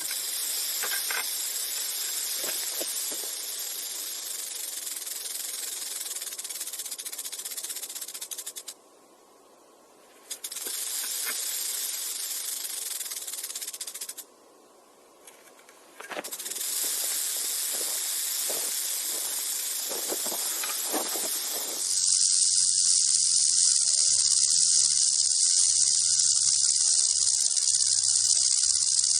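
Rattlesnake rattling its tail: a continuous high buzzing hiss. It breaks off twice for a second or two, and about two-thirds of the way through it switches to a louder, steadier rattle.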